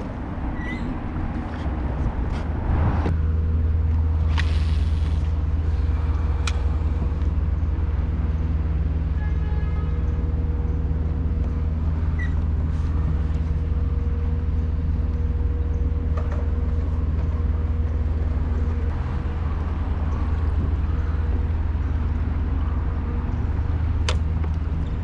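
Steady low hum of an idling engine, starting about three seconds in and running on, with a few scattered clicks and knocks.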